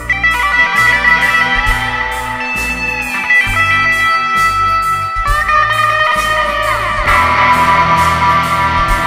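Background guitar music: held notes with a few sliding pitches, including a falling slide a little before the end, over a low bass line.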